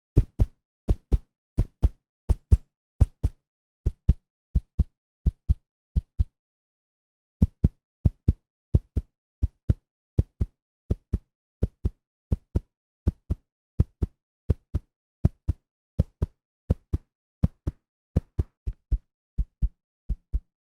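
Heartbeat sound effect: a steady run of low double thumps (lub-dub), about one and a half beats a second, with a pause of about a second roughly six seconds in.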